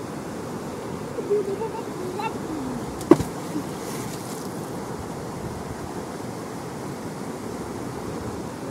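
Muddy floodwater rushing steadily down a wadi in flash flood. About three seconds in, a single sharp splash cuts through the rush, and faint voices are heard before it.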